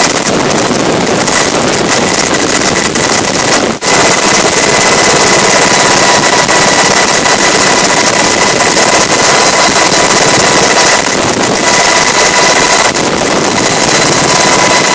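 Coast Guard MH-60 Jayhawk helicopter heard from inside the cabin in flight: a loud, steady rush of turbine engines and rotor with a thin high whine, briefly cut short about four seconds in.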